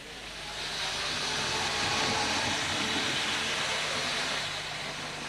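Model electric train, the miniature Eurostar, running along the layout track: a steady hiss of wheels on rail with a low, even motor hum. The sound builds over the first two seconds as the train comes closer, then eases slightly near the end.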